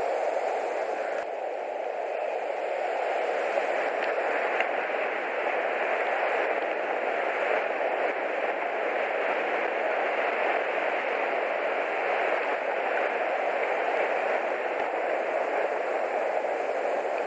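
Steady rain hiss, even and unbroken, with a couple of faint ticks about four seconds in.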